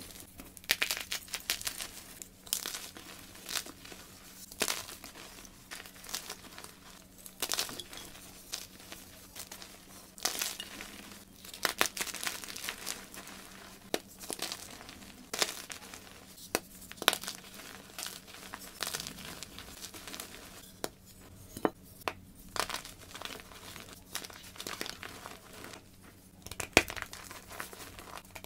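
White gym chalk crumbled and crushed by hand, blocks pressed apart and loose powder squeezed between the fingers: irregular dry crunches and crackles, some sharp snaps standing out.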